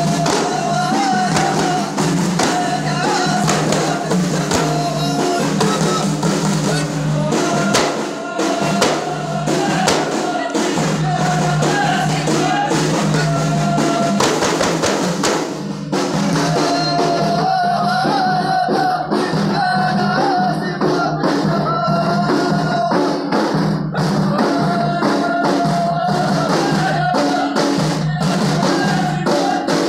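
Ahidous: a line of men beating Amazigh frame drums (allun) in a steady, driving rhythm while singing together in chorus.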